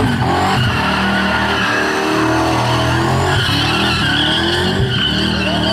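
Turbocharged 383 V8 of a Holden VL Commodore doing a burnout, held at high revs and revving up and down while the spinning rear tyres squeal.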